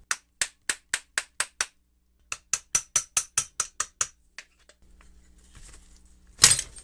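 Light hammer taps driving a pin out of a belt sander's roller: two quick runs of sharp, evenly spaced taps, about four to five a second, with a short pause between them, then one louder knock near the end.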